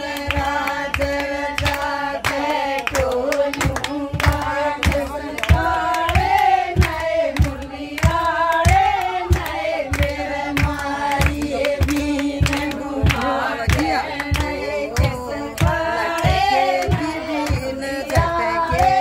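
A group of women singing a Haryanvi folk bhajan together, with steady hand-clapping keeping the beat at about two claps a second.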